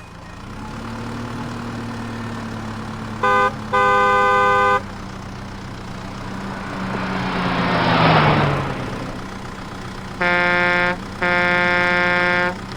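Cartoon vehicle sound effects: a steady engine hum with two pairs of horn honks, a short toot followed by a longer one, about three seconds in and again near the end. In between, a whoosh swells and fades with a falling pitch, like a vehicle driving past.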